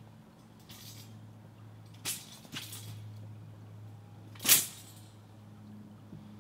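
Quick swishes of a Chinese straight sword (jian) and the practitioner's loose clothing during explosive fajin strikes: several short whooshes, the loudest about four and a half seconds in, over a steady low hum.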